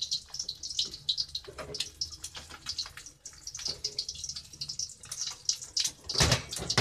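Egg frying in hot oil in a wok over a gas flame turned low, sizzling with a dense, irregular crackle of small pops. A loud knock comes about six seconds in.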